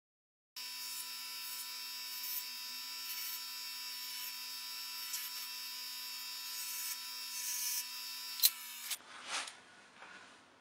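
Bench grinder's electric motor running with a steady hum and whine, with a few light clicks and a sharp click near the end before it cuts off suddenly. A second of short, irregular noises follows.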